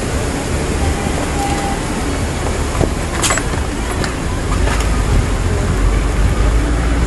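Floodwater rushing down a street, a steady roar of water with a low rumble that grows louder about halfway through, and a single sharp click about three seconds in.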